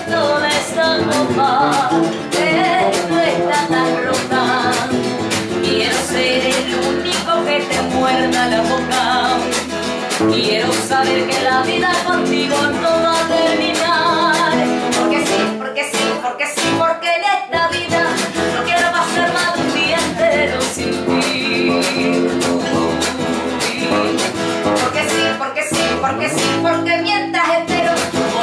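Live acoustic duo: a woman singing with vibrato over her own acoustic guitar and an acoustic bass guitar. The song plays on without a stop, thinning briefly about halfway.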